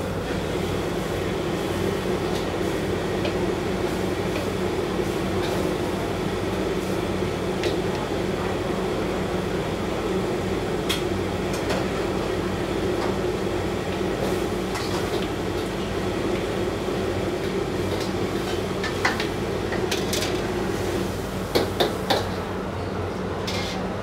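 Commercial gas wok burner running with a steady rush under oil frying in the wok. A few sharp metal clinks of strainer and ladle against wok and bowl, three close together near the end.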